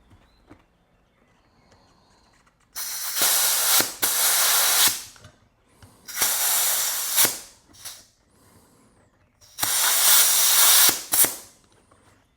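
Compressed air hissing from an air compressor's inflator chuck into a bicycle inner tube, in three bursts of a second and a half to two seconds each, as the tube is partly inflated.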